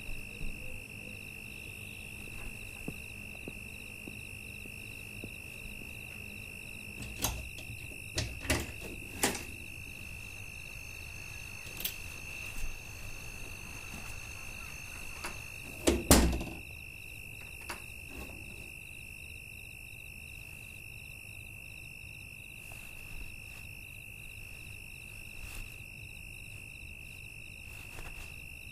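Night ambience of crickets: a steady, high-pitched chirring that never stops. Over it come a few sharp knocks between about 7 and 9 seconds in, and a louder, deeper thump at about 16 seconds.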